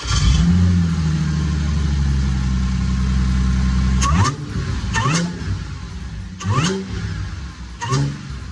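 Car engine catching and settling into a fast, steady idle, then revved in several short throttle blips, each a quick rise in pitch, over the last four seconds.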